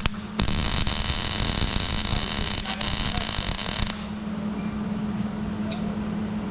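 MIG welder arc running in one continuous bead, a steady frying hiss that starts about half a second in and stops sharply at about four seconds. A steady low hum runs underneath.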